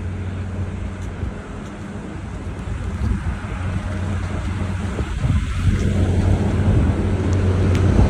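Hurricane-force wind rushing and buffeting over a steady low hum, growing louder through the second half.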